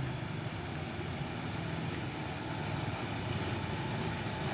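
Truck engine running steadily as the truck rolls slowly toward the listener, a low hum over faint road noise.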